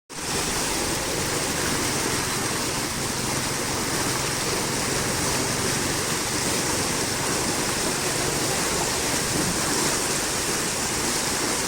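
Steady, loud rush of flowing water, starting abruptly.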